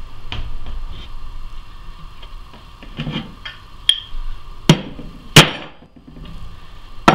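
Claw hammer striking a punch held on a metal teaspoon, marking a hole for drilling: a few light clicks as the punch is set, then three sharp metallic strikes about a second apart in the second half, the third the loudest, and another at the very end.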